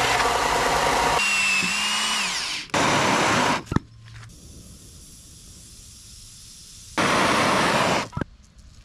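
An electric belt sander runs while a piece of cow horn is ground on it, its whine shifting in pitch under the load. Then a MAP gas hand torch hisses, in two loud spells with a softer steady hiss between, each loud spell cutting off sharply.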